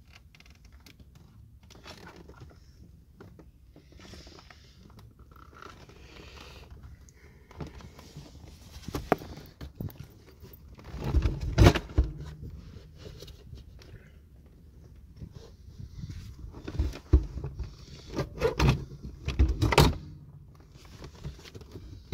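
Clicks, scrapes and knocks of a power seat and its bolts being worked into place in a C4 Corvette, with louder bumps about halfway through and again several times near the end.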